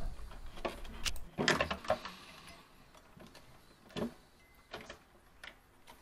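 Wires and plastic connectors being handled and worked loose at a refrigerator's compressor inverter: scattered light clicks and knocks, several close together at first, then single sharp ticks spaced out toward the end.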